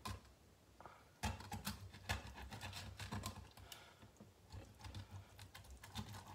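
Kitchen knife scoring a whole fish on a cutting board: a string of light, irregular clicks and taps as the blade slices slits in the skin and knocks against the board, busiest from just after a second in.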